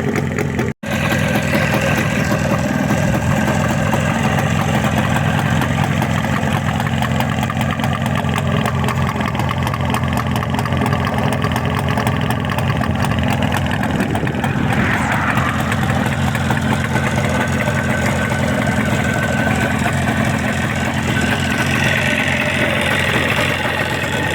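Jawa 350 motorcycle engine running steadily at a fairly even speed, with a brief dropout just under a second in.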